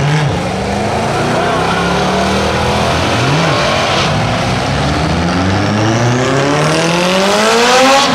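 Drag racing cars launching and accelerating hard down the strip, their engine pitch climbing through the gears with a drop at a shift about three seconds in. The pitch then rises steadily and is loudest near the end.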